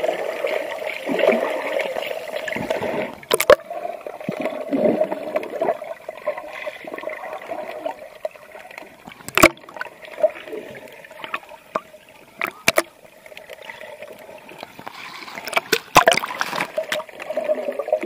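Water sloshing and gurgling as heard underwater through a camera's microphone, muffled, with a few sharp clicks.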